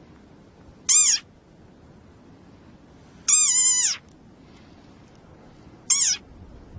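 An animal's high-pitched calls, three times; each call rises and falls in pitch, and the middle one is longer.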